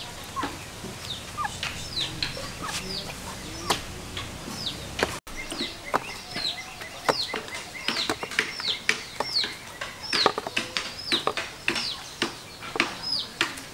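Chickens and chicks calling: a steady run of short, high, falling chirps, several a second, busier in the second half, with a few light clicks among them.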